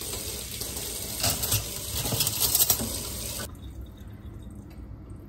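Kitchen sink tap running water into a stainless sink, a steady hiss that is shut off abruptly about three and a half seconds in.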